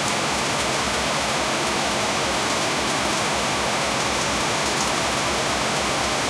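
Heavy rain falling steadily, a dense even hiss with faint scattered drop ticks.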